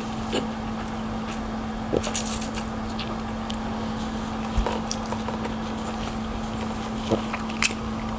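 Close-miked eating: a mouthful of noodles being slurped and chewed, with scattered wet mouth clicks and smacks. Under it runs a steady low electrical hum.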